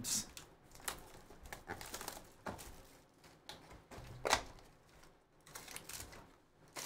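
Hands handling and opening a cardboard trading-card box and drawing out a foil-wrapped card pack: irregular cardboard scrapes, taps and crinkles, the sharpest about four seconds in.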